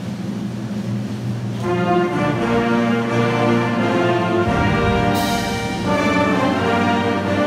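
High school symphonic band playing, with tubas, euphoniums and trombones prominent. Low held notes give way to the fuller band coming in about two seconds in, with a crash about five seconds in.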